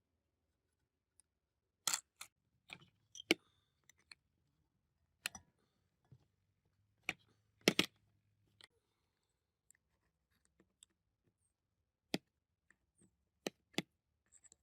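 Tools and parts being handled: a dozen or so short, sharp clicks and knocks at irregular intervals with quiet gaps between them, the loudest about eight seconds in.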